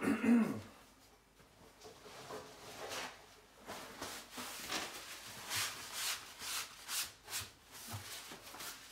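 Kitchen handling noise off-camera: a sudden knock with a short ringing at the start, then a run of light clicks and rustles as things are moved about.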